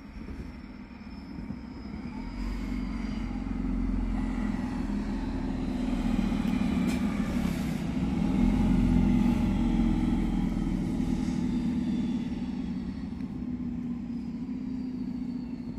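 Regio-Shuttle diesel railcar approaching and passing close by. Its underfloor diesel engine and the wheels on the rails grow louder to a peak about halfway through, then fade as it moves away.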